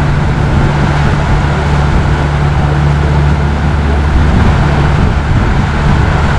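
Motor of a small tour boat running at a steady speed: a constant low hum with a rushing noise over it.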